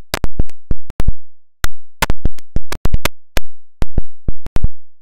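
Parting bead being knocked into the dado of a wooden window frame with a wooden block: about twenty sharp, loud wooden knocks in quick irregular runs, several in pairs, each with a short boomy ring.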